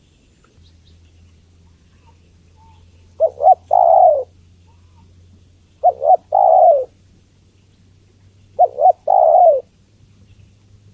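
Spotted dove cooing, given as a female calling to draw males: three calls about two and a half seconds apart, each two quick coos followed by a longer coo.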